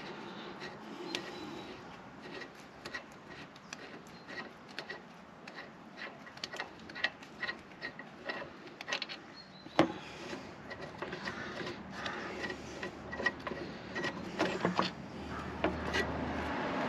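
Small metallic clicks and taps from a socket on the rear brake caliper carrier bolts being undone by hand, with one sharper knock about ten seconds in.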